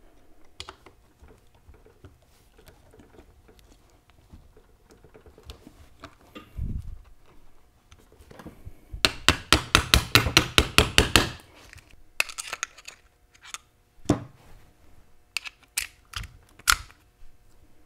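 Steel parts of a Hurst Competition Plus shifter clicking and clinking against each other as the backing plate is worked into the shifter body by hand and with a punch. Light scattered clicks, a dull knock near the middle, then a quick run of about a dozen sharp clicks, followed by a few more clicks.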